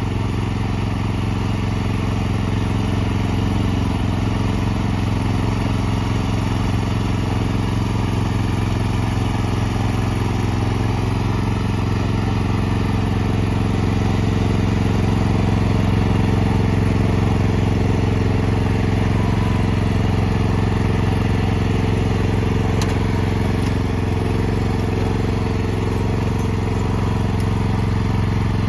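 Walk-behind tracked snowblower's engine running steadily as the machine cuts through deep snow and throws it from the chute, slightly louder around the middle.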